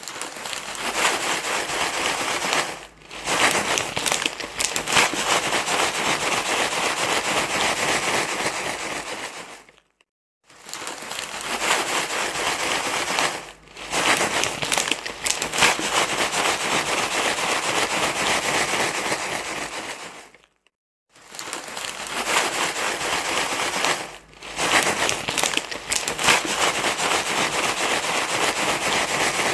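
Continuous crinkling, rustling noise in long stretches, broken by short silences about 3 s in, near 10 s, around 20–21 s and about 24 s in.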